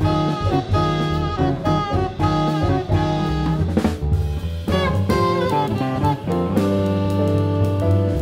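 Small jazz band playing: saxophone, piano, upright bass, drum kit and electric guitar, with a quick upward saxophone run a little past the middle.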